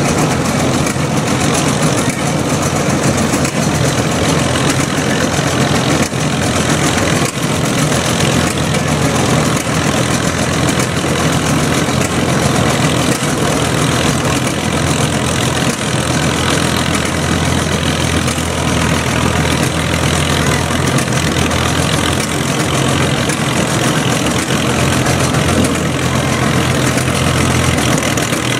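Antique farm tractor engine idling steadily while hooked to a pulling sled.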